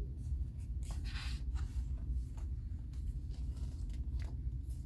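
Paper rustling and a few light clicks as the pages of a picture book are handled and turned, over a low steady hum.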